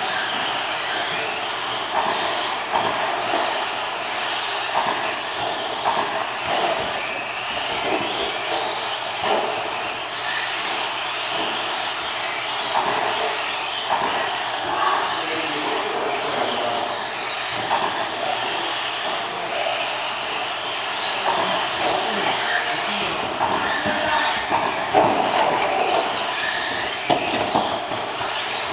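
Several electric RC stadium trucks racing on a dirt track: their motors whine, rising and falling in pitch as they speed up and slow down, with tyre noise on the dirt. Short knocks come now and then, the loudest about 25 seconds in.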